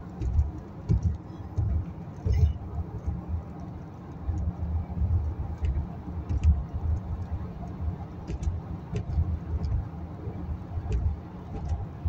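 Car cabin noise while driving at speed: a steady low rumble of tyres on the road and the engine, with a few faint scattered ticks.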